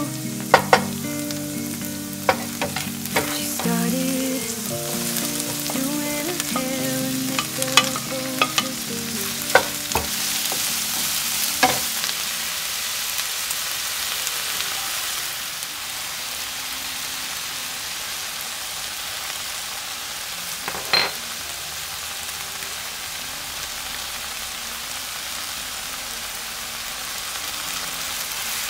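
Green onion, garlic, cabbage and octopus sizzling in oil in a frying pan, with a spatula knocking and scraping against the pan now and then. The sizzle gets brighter and louder for a few seconds about ten seconds in, around when more ingredients go in. A soft melody plays under the first twelve seconds or so, then stops.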